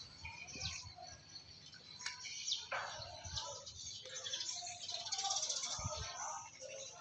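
Small birds chirping, mixed with a few sharp clicks of cooked mussel shells being handled and pried open.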